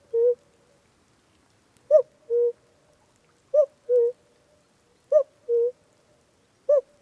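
A two-note hooting call, a short higher note followed by a slightly lower one, repeated about every second and a half.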